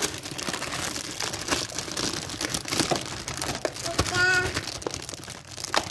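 Clear plastic packaging bag crinkling and rustling as hands pull plastic toy parts out of it.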